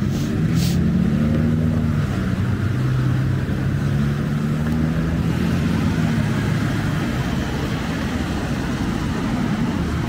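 Street traffic: a motor vehicle's engine passing close, its pitch rising and falling over the first several seconds, over steady road noise. Two brief ticks sound right at the start.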